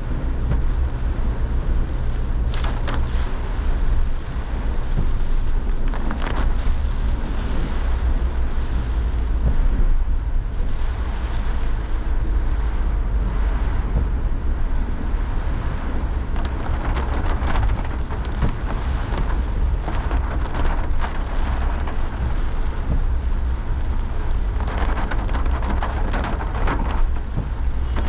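Heavy tropical rain with gusting wind, the wind rumbling steadily on the microphone. The rain and gust noise swells several times.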